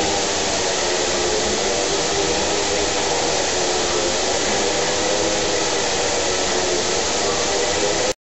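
Bausch + Ströbel vial filling, plugging and oversealing machine running: a steady mechanical whir and hiss with a faint hum of several steady tones, cutting off abruptly near the end.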